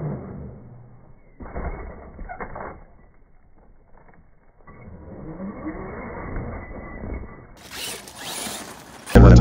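Arrma RC truck's brushless electric motor and drivetrain whining and rattling as it drives over dirt, rising in pitch as it revs about halfway through, with a few knocks early on. The sound is muffled.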